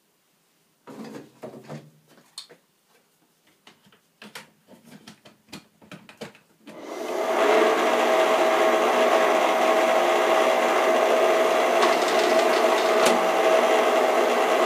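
A few clicks and knocks of parts being handled, then about seven seconds in the Schaublin SV52 milling machine's feed motor, a three-phase motor, starts and drives the freshly lubricated feed gearbox, running steadily with a steady whine over rough gear noise. The gearbox is a bit noisy.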